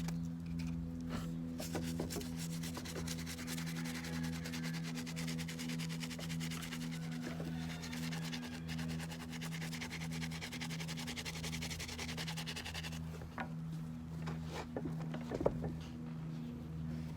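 Rapid back-and-forth scrubbing on a sneaker during cleaning. It stops about 13 seconds in, followed by a few light knocks.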